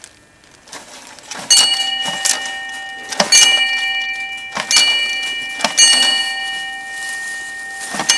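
A round metal disc hung up as a homemade bell or gong, struck by hand again and again at uneven intervals, sometimes twice in quick succession. Each strike rings with several steady overlapping tones that carry on between the strikes.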